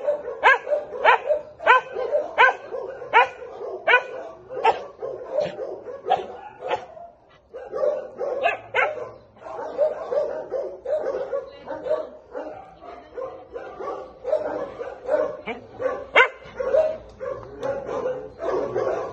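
A dog yipping in quick, high-pitched yelps, about two a second, then after a short pause whining and whimpering continuously with a few sharper yips mixed in.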